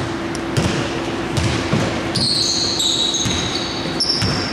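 A basketball being dribbled on a wooden hardwood court, bouncing about twice a second. Shifting high-pitched tones sound over it.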